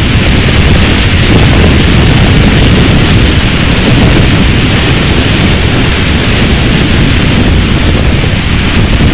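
Strong wind buffeting the microphone: a loud, steady low rumble with an even hiss above it.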